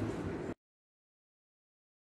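Faint room noise that cuts off abruptly about half a second in, followed by dead silence.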